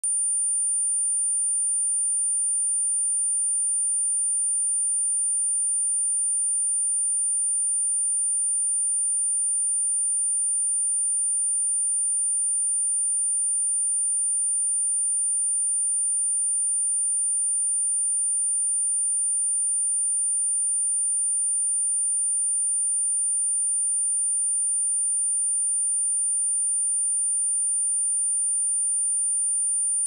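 A steady, high-pitched 9214 Hz pure sine test tone, held without change: a speaker-test and speaker-cleaning tone meant to check speakers and headphones and shake water and dust out of a speaker.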